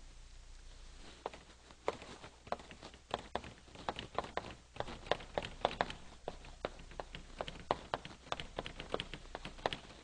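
Chalk writing on a blackboard: a quick, irregular run of sharp taps and short scrapes as letters are written, starting about a second in.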